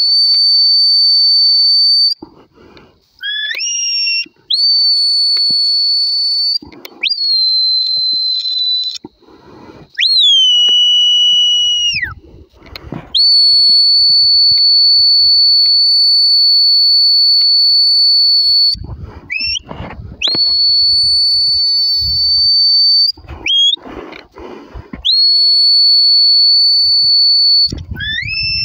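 Shepherd's whistle commands to a working sheepdog: a series of long, steady high-pitched whistle blasts, one held about five seconds, broken up by short rising whistles and a couple of whistles that slide down in pitch.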